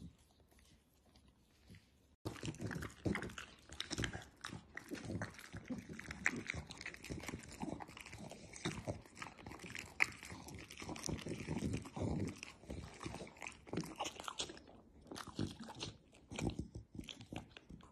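Dog chewing, with dense irregular crunching and biting on something hard that starts suddenly about two seconds in and keeps going until near the end.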